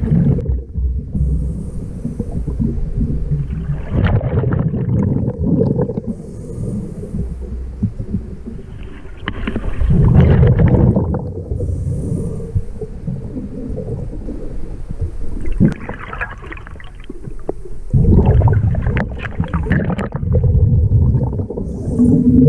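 Scuba diver breathing through a regulator underwater: a bubbly rumble of exhaled air about every six seconds, with a short high hiss of each inhalation between them.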